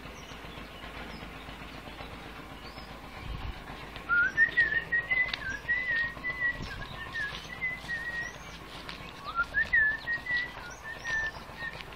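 A person whistling a wavering tune in two long phrases, each opening with an upward slide, starting about four seconds in and again about nine seconds in, with faint bird chirps behind.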